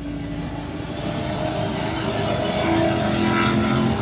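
A steady engine drone with several held tones over a rushing background, growing a little louder.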